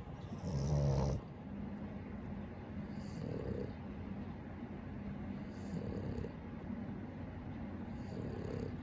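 French bulldog snoring: one loud snore about half a second in, then softer snoring breaths repeating roughly every two and a half seconds.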